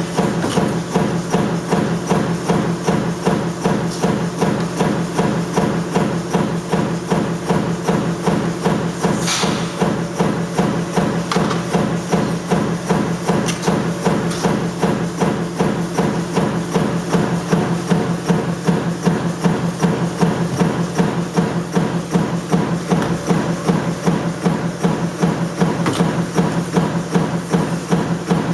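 Metal stamping press running continuously, striking in a rapid even rhythm of several strokes a second over a steady machine hum, with one brief sharper noise about nine seconds in.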